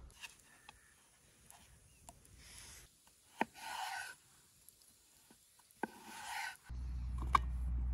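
Chef's knife slicing through a raw peeled potato and knocking on a wooden chopping board: two cuts, each a sharp tap followed by a short crisp slicing sound. Near the end a low steady rumble starts.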